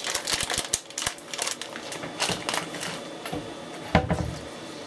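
A utensil stirring and scraping food in a pan: a quick run of small clicks and scrapes, with one louder knock about four seconds in.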